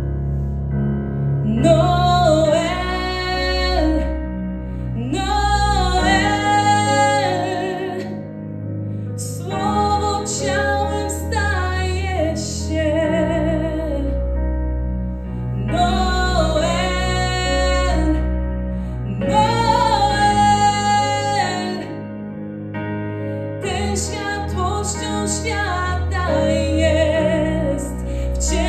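A woman singing a Polish Christmas carol into a microphone in slow, held phrases of a few seconds each, over a sustained instrumental accompaniment.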